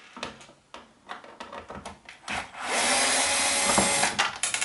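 Gloved hands handling a plastic electric-shower casing: light clicks and knocks, then a loud steady hiss-like rubbing noise lasting about a second and a half, a little past halfway.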